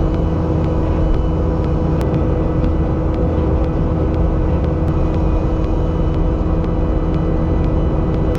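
An engine running steadily at an even pitch, like heavy machinery working.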